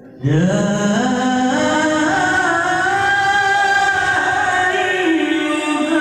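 Qur'an recitation in melodic tilawah style: a qari's voice starts loud, about a quarter second in, and holds one long drawn-out note that bends slowly, turning in pitch near the end.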